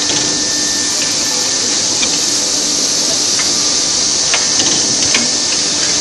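Pneumatic canvas-frame forming machine running: a steady high air hiss over a faint machine hum, with a few sharp clicks and knocks in the second half as its actuators move.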